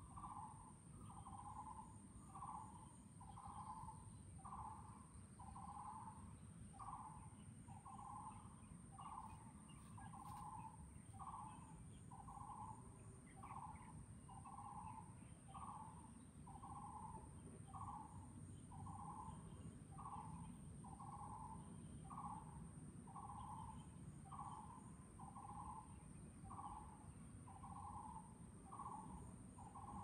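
Taiwan barbet calling: a long, steady series of single notes repeated about once a second without a break.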